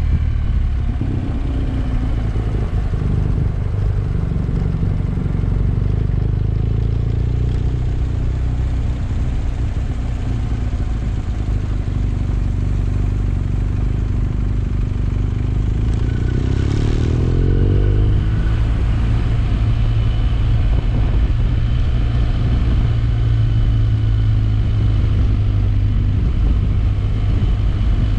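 Motorcycle engine running while riding, its note climbing in pitch a little past halfway and then settling.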